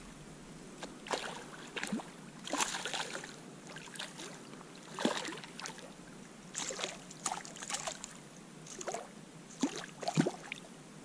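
Hooked smallmouth bass splashing at the water's surface as it is reeled in and landed, a string of about a dozen sudden irregular splashes over a faint background of moving water.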